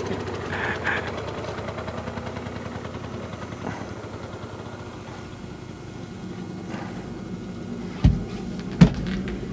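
Bicycle-drawn cart rolling along, a steady mechanical rattle and rumble from its wheels and frame. Two sharp knocks come near the end.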